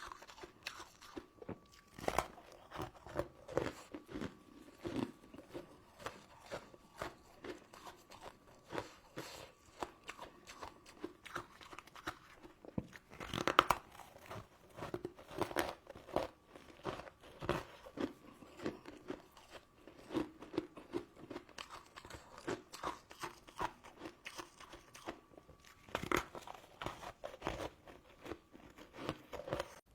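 Close-miked eating sounds: crisp crunches and crackles of chewing sugar-crusted crystal candy and jelly, coming in quick irregular bites, with one louder crunch about halfway through.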